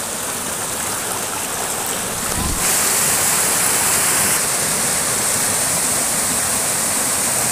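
Water rushing steadily over rocks in a small waterfall and stream cascade. It grows louder about two and a half seconds in, just after a brief low thump.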